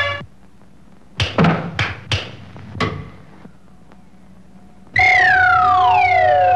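Cartoon sound effects: the orchestral score cuts off, then four or five sharp knocks come over about two seconds, followed by a lull. About five seconds in, a loud whistle-like tone slides downward over a held steady note.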